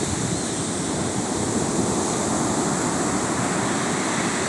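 Surf breaking on a sandy beach: a steady rush of waves.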